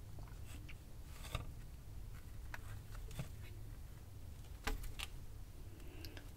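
Faint clicks and light taps of the GoSun Go solar oven's cooking tray being handled and opened, with two sharper clicks about three-quarters of the way through.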